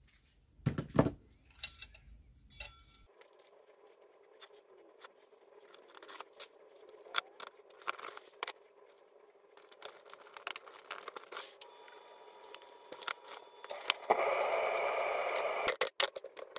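Metal parts of a Vespa clutch and gearbox clinking, tapping and scraping as they are handled on a workbench, with a loud cluster of knocks about a second in. Near the end comes a steady rushing, scraping noise lasting about two seconds, then quick sharp taps.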